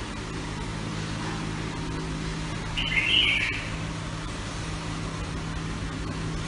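A white husky puppy gives one short, high-pitched squeak about three seconds in, over a steady low hum.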